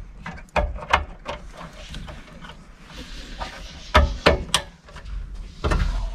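Sharp clicks and knocks of hands handling parts in a Honda Insight's IMA battery compartment: three close together near the start, three more about four seconds in, then a louder clatter near the end.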